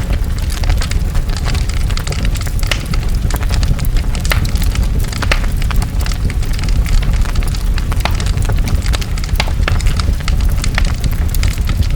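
Large fire burning: a steady low rumble with frequent sharp crackles and pops.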